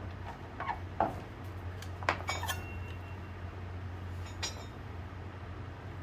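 Metal tools and wheel parts clinking and knocking: a handful of separate sharp clinks, the clearest about two seconds in, over a steady low hum.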